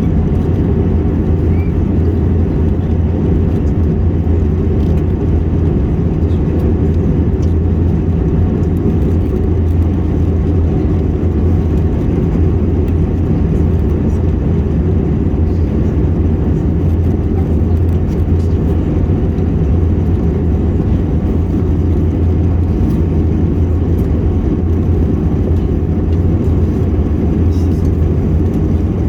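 Steady cabin noise of an Airbus A321 in flight, a constant low rumble of engines and airflow.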